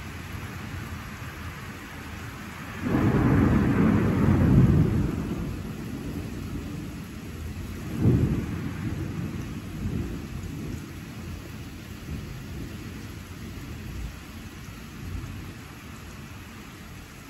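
Steady rain with thunder: a loud rumble breaks about three seconds in and rolls for a couple of seconds, then a second, sharper crack near the middle rumbles off and fades over a few seconds.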